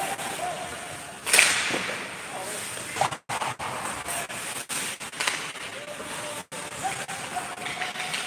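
Ice hockey rink play: a loud sharp crack about a second in, as stick meets puck, followed by lighter clacks of sticks and puck, with faint distant shouts from the rink.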